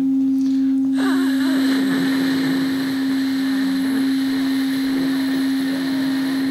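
Electronic sine tone held steady, with a loud hiss of white noise coming in about a second in: a computer-generated tape piece moving between pure tone and white noise.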